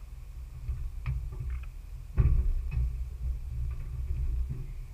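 Low rumble of a 4x4 driving slowly over a rough off-road trail, with a few knocks and clunks from the vehicle. The rumble gets louder about two seconds in.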